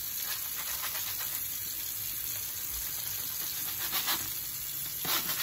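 Kitchen tap running into a sink while a brush scrubs a metal-mesh grill splatter shield, with a few louder scrubbing strokes about four and five seconds in.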